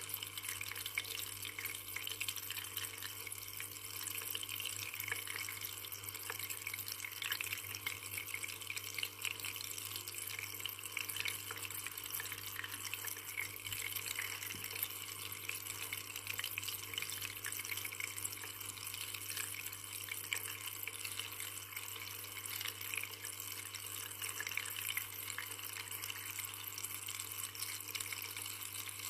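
Water falling and splashing in a steady, unbroken stream, with a low steady hum underneath.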